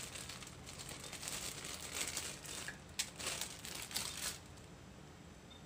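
Thin plastic bag crinkling and rustling as garlic cloves are picked out of it, with one sharp tick about three seconds in; the rustling stops about a second before the end.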